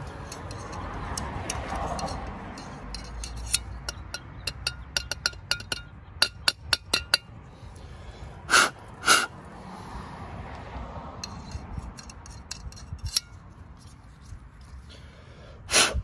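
A brazing rod poking and scraping inside a Trane gas furnace burner to clear out a stuck spider web. It makes a run of quick, ringing metal taps and clicks, then two louder sharp bursts about half a second apart, and one more near the end.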